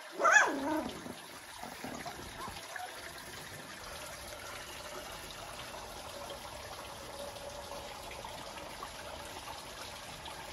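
A puppy gives one short, high yelp just after the start, its pitch bending up and down; after that only a steady faint hiss of background noise remains.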